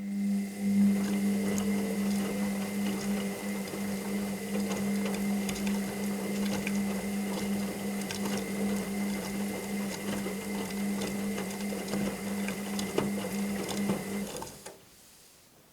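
Washing machine motor turning the drum in the wash cycle: a steady hum with light clicks and rattles. It starts abruptly and stops after about fourteen and a half seconds.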